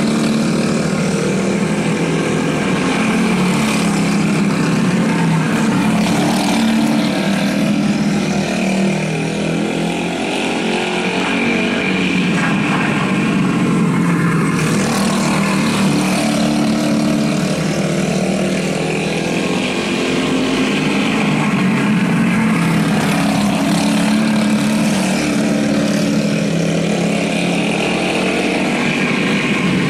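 Several go-kart engines running at race speed together, their notes rising and falling as the karts accelerate and lift around the track.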